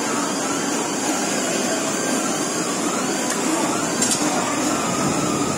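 Steady machinery noise with a thin high whine, under faint distant voices, and a brief click about four seconds in.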